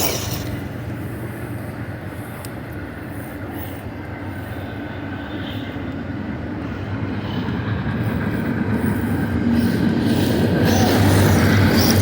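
A train passing, a steady low rumble of rail noise that grows louder over the last few seconds.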